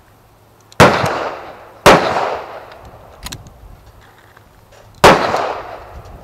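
Three loud gunshots, each with a long echoing tail: two about a second apart near the start and a third about three seconds later.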